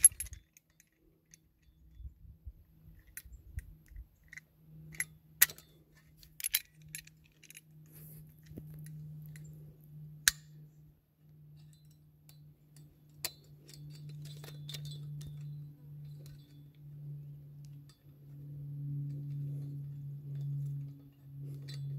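Pliers and trellis wire clinking and scraping against a metal wire strainer as the wire end is twisted round to tie it off, with scattered sharp metallic clicks. A faint steady low hum runs underneath from a few seconds in.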